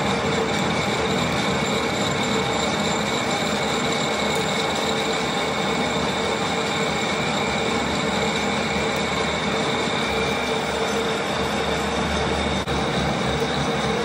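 Manual metal lathe running steadily: a continuous machine whine with several held tones over a dense mechanical hiss, with a little more low rumble near the end.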